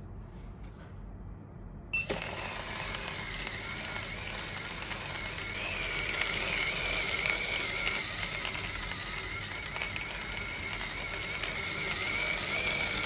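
Staresso Discovery II battery-powered conical burr grinder switching on about two seconds in, then grinding coffee beans fine for espresso: a steady, wavering motor whine over the grainy crunch of beans in the burrs. The motor runs at low RPM, so it is not very noisy.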